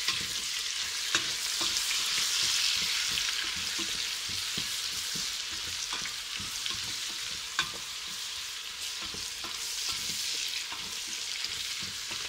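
Chopped onion sizzling steadily in hot oil in a stainless steel pot, stirred with a wooden spoon that now and then clicks against the pot.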